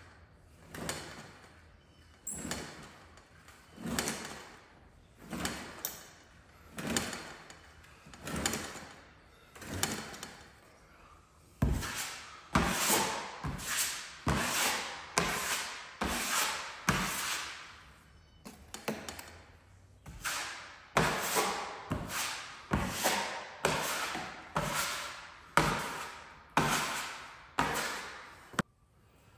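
Drywall knife scraping joint compound across the ceiling in repeated strokes, each swelling and then breaking off. They come about one a second at first, then louder and a little faster from about twelve seconds in.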